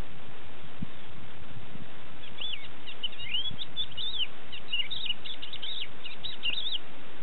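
A lark singing a run of quick, high, slurred notes that swoop up and down, starting about two and a half seconds in and stopping shortly before the end, over a steady hiss.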